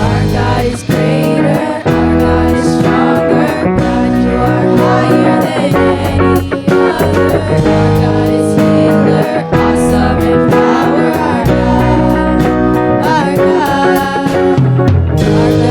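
Worship band playing a song, with guitar to the fore over bass and drums.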